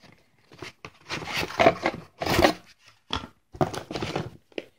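Cardboard box and molded pulp packaging inserts rustling and scraping in a series of short, irregular bursts as an audio interface is worked out of its box.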